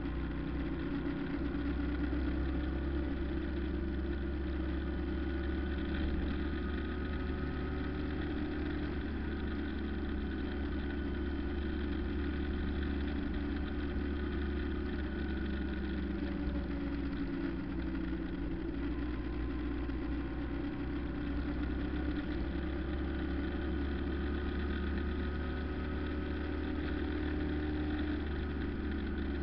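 Steady engine and road noise heard from inside a moving car, a constant low drone with no change in speed.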